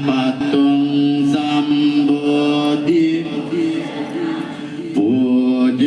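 Buddhist chanting: voices sing a mantra on long held notes over a steady low tone, easing off briefly about four seconds in before picking up again.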